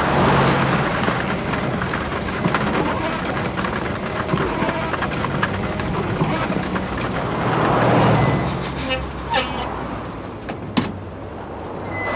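Engine and road noise of a moving vehicle heard from inside its cab, a steady rumble that swells twice, near the start and about eight seconds in, with a few sharp clicks later on.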